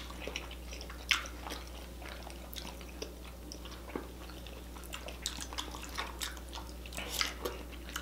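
Close-miked eating of spaghetti and meatballs: wet chewing and slurping of noodles, broken by scattered small sharp mouth clicks and smacks.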